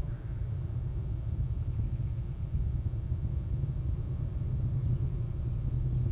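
Steady low rumble of outdoor ambience picked up by a live webcam's microphone, with no distinct events.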